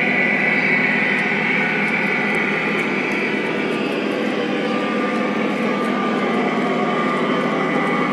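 Model train running on its track, a steady mechanical whir of motor and wheels.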